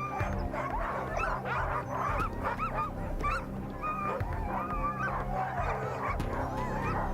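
A pack of sled huskies barking, yipping and whining all at once, many short rising and falling calls overlapping: excited dogs eager to run.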